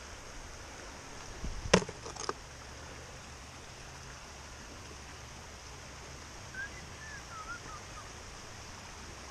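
Small forest creek running steadily over rocks, with two sharp knocks about two seconds in and a short wavering bird call around seven seconds in.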